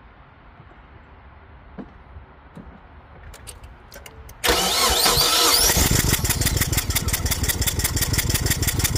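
Mazda 626 engine cranked and catching about four and a half seconds in, then running with a fast, even pulse. A few light clicks come just before it starts.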